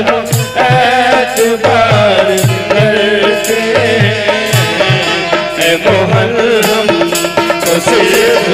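Live devotional bhajan music: a dholak drum beats a steady rhythm of low strokes under a wavering melody, with a bright jingle of small cymbals on the beats.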